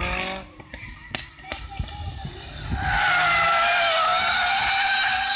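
A car's tyres squealing loudly and steadily as it slides through a corner, starting about three seconds in. Before that, its engine note fades out within the first half second.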